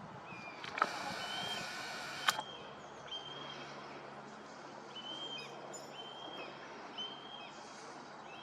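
A bird calling in short, high chirps, repeated roughly once a second over steady outdoor background noise. Two sharp clicks about a second and a half apart near the start are the loudest sounds.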